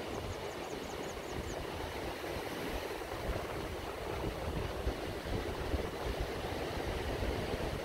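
Atlantic surf breaking and washing on the beach, with onshore wind buffeting the microphone in a gusty low rumble. A short run of faint high chirps in the first second and a half.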